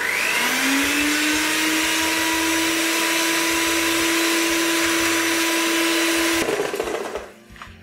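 Electric hand mixer running at low speed, its beaters whipping cream in a metal bowl. The motor spins up to a steady hum at the start and cuts off about six and a half seconds in.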